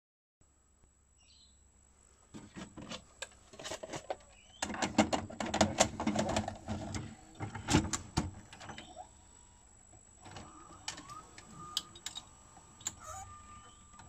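Sony SLV-EZ735AZ VHS video recorder taking in a cassette: clicks and clunks as the tape goes into the slot, then the loading mechanism's motor whirring and clattering as it draws the cassette in and threads the tape, loudest about five to eight seconds in. After that come a few quieter clicks and a faint steady whine from the mechanism.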